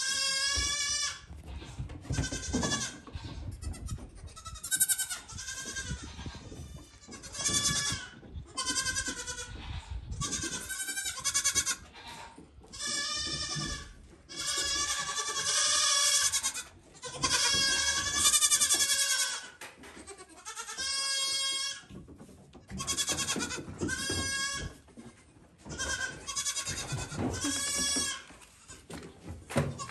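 Goat kids bleating over and over, a string of quavering calls, each about a second long, some overlapping one another.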